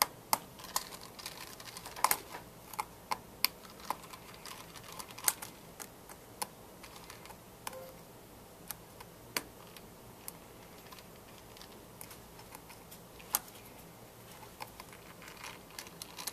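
Irregular light clicks and taps of a small flathead screwdriver and fingers working on the screws and metal parts inside an opened iPhone 5. The clicks come thick and fast for the first few seconds, then only now and then.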